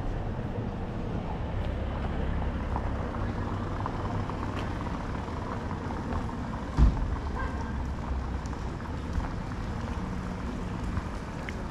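Street ambience dominated by a steady low rumble of town traffic, with one sharp thump about two-thirds of the way through.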